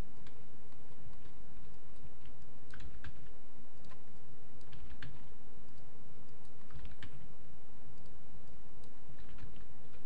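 Irregular clicking of computer keyboard keys and mouse buttons, a few clicks a second in uneven clusters, over a steady background hiss.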